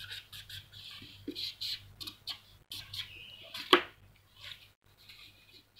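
Felt-tip marker scratching and squeaking across paper in quick, uneven scribbling strokes, with one sharper knock a little under four seconds in.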